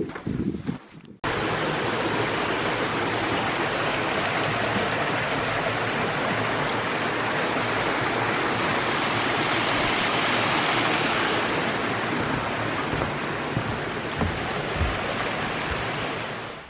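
Steady rushing of fast-flowing water, a mountain stream, coming in abruptly about a second in and cutting off just before the end. Before it, a second of wind buffeting the microphone.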